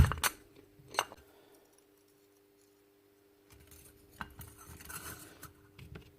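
Metal parts of a DeWalt framing nailer clicking and clinking as it is handled during repair: a few sharp clicks in the first second, a quiet pause, then fainter scattered handling clicks.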